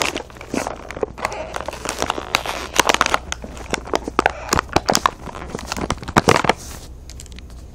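Stiff plastic blister packaging crinkling and clicking as an action figure and its accessories are worked free, in quick irregular snaps. A low steady rumble from a passing train runs underneath.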